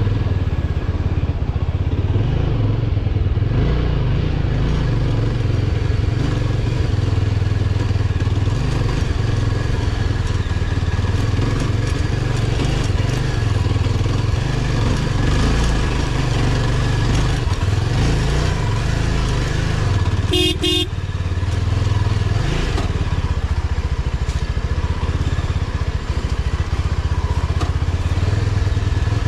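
A 2022 Yezdi Scrambler's single-cylinder engine running steadily while the motorcycle is ridden over a rough, rocky dirt track. A brief horn beep sounds about two-thirds of the way through.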